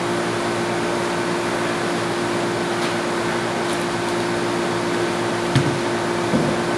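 Steady background machinery hum with one constant tone. A couple of light knocks near the end as the loose scroll compressor is tilted and handled.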